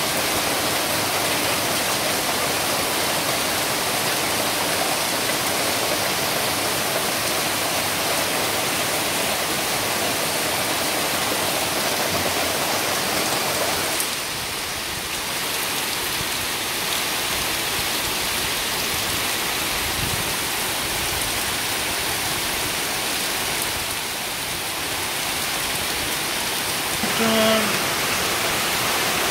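Heavy rain pouring down, a dense, steady hiss that drops slightly in level about halfway through. A short pitched sound cuts through near the end.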